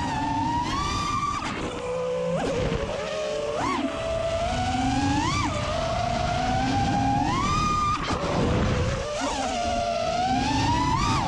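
FPV racing drone's brushless motors and propellers whining, the pitch jumping up sharply with each throttle punch and sliding back down, about seven times, over a low rush of wind.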